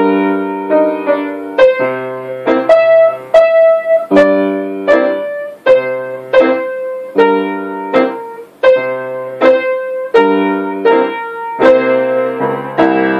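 Grand piano played four hands by a child and an adult: a steady beat of struck notes and chords, a little over one a second.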